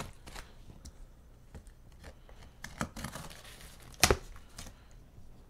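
Knife slitting packing tape on a cardboard shipping box, with scattered scrapes and rustles of tape and cardboard. A little after four seconds in there is a single sharp click as the folding knife is closed.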